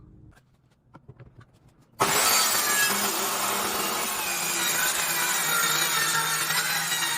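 Bosch GKS 190 corded circular saw sawing through wood. A few light clicks come first, then about two seconds in the saw cuts in loud and runs steadily.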